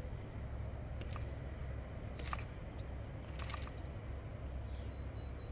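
Low, steady rumble of wind on the camera's microphone, with a few faint clicks as hands handle a small fish and lure.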